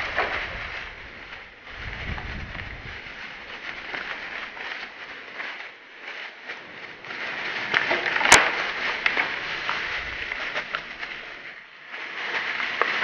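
Close rustling and crackling with many small clicks, some low rumble in the first few seconds, and one sharp click a little past eight seconds in.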